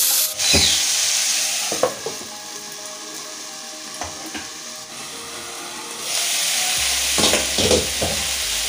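Chopped vegetables sizzling in hot oil in a frying pan, with a wooden spatula stirring and knocking against the pan a few times. The sizzle sinks to a quieter, muffled hiss for a few seconds while a glass lid covers the pan, then comes back loud once the lid is off.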